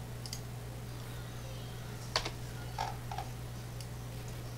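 Clicks from working a computer mouse and keyboard: a faint click near the start, then a sharp click about two seconds in followed by two softer ones, over a steady low hum.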